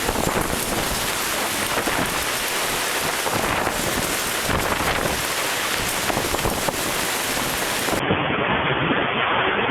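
Heavy rain pouring down in a thunderstorm: a steady, dense rush of noise.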